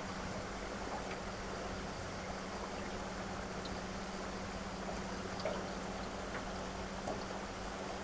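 Steady rush of fast-flowing river current, with a faint steady low hum underneath.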